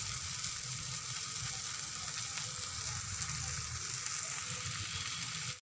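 Besan chilla batter frying in oil in a non-stick pan, with oil just drizzled around its edge: a steady sizzle that cuts off suddenly near the end.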